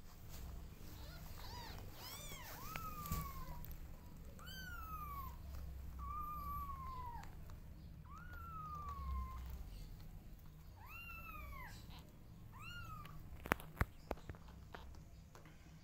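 Newborn kittens mewing as they nurse: about eight thin, high cries, each rising then falling in pitch, some held for a second or more. Near the end, a few sharp clicks, the loudest sounds.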